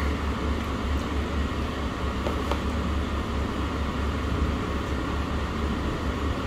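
Steady low rumble of restaurant room noise, with a few faint clicks about a second in and again near the middle.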